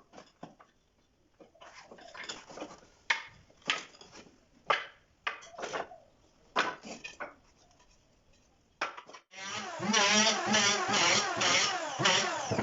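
Pieces of wood being handled and knocked together, a series of sharp knocks and short scrapes. About nine seconds in, a loud, continuous workshop machine starts and keeps running, its pitch wavering.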